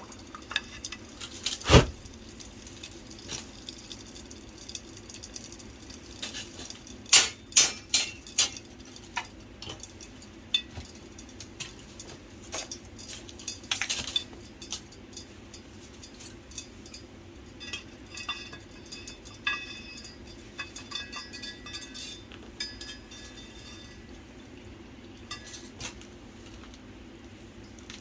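Scattered metallic clinks and knocks from hot steel being handled, with faint liquid sounds typical of a blade being quenched. The loudest knock comes about two seconds in, and a cluster of several strikes follows about seven seconds in, some ringing briefly.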